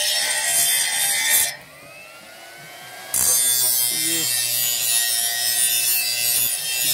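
Steady hissing machine noise with a low hum, from running machinery. It drops away about a second and a half in and comes back abruptly a second and a half later.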